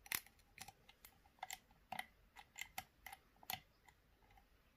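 Lock pick working the pins of an Assa D12 v2 cylinder lock under tension: faint, irregular metallic clicks and ticks as the pick rubs on the wards and lifts the pins.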